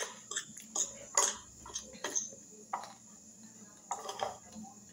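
A fork clinking and scraping against a glass bowl in a run of short knocks while someone eats, with a cluster of clinks about four seconds in.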